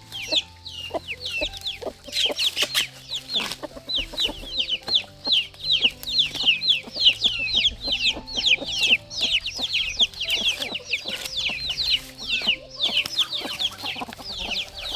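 A flock of domestic chicks peeping continuously: many quick, high-pitched, downward-sliding peeps overlapping several times a second.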